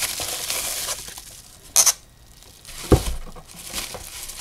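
Bubble wrap crinkling and rustling around a plastic envelope punch board as it is handled out of a cardboard box. There is a sharp crackle a little under two seconds in and a thump about three seconds in as the board is set down.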